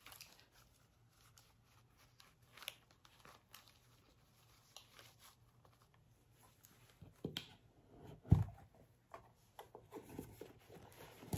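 Hands handling jewelry packaging: faint rustling of a fabric pouch and paper with small clicks, a dull thump about eight seconds in, and a few lighter knocks near the end.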